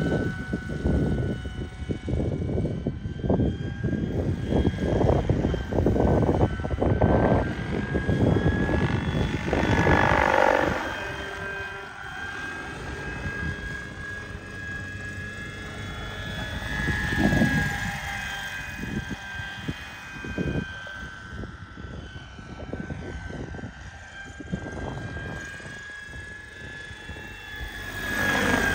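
Radio-controlled 1:6 scale Bo 105 model helicopter in flight: a steady high whine with rotor noise, swelling louder and bending in pitch as it passes close about ten seconds in, again around seventeen seconds, and near the end.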